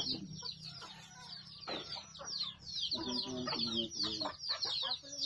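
Backyard chickens clucking, with a busy stream of short, high, falling chirps all through and a few lower calls about three seconds in and near the end.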